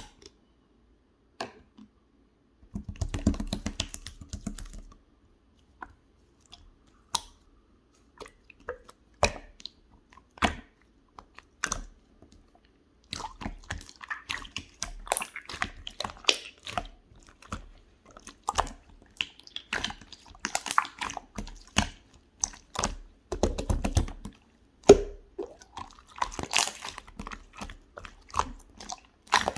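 Blue clear slime being pressed and worked by hand, giving sticky clicks and crackles: scattered single clicks at first, then a near-continuous crackle from about halfway through.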